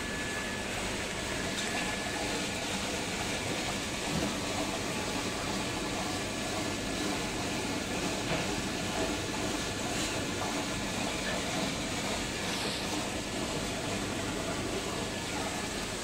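Steady rushing hiss of water flowing through a rotary drum pond filter under a flow test.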